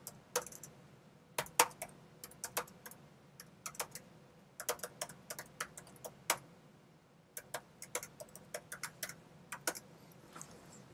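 Typing on a computer keyboard: irregular clicking keystrokes in short runs with brief pauses between them, and a longer pause a little past the halfway point.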